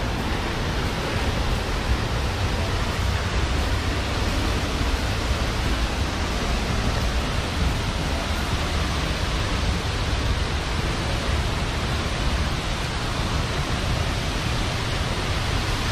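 Waterfall: falling water making a steady, even rush with a deep rumble underneath.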